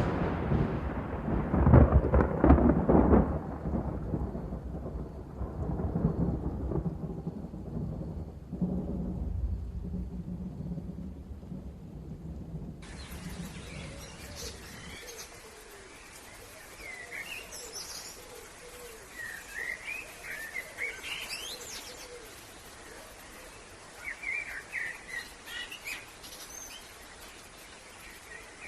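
Thunder rumbling and rolling away, loud at first and fading over about a dozen seconds. Then, abruptly, a switch to birds chirping and singing in short, repeated calls.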